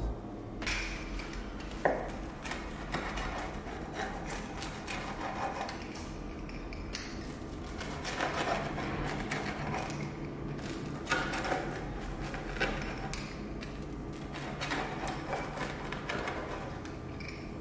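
A pizza wheel cutter rolling through baked pizza crust and scraping against a bamboo cutting board, in repeated crunching, scraping strokes.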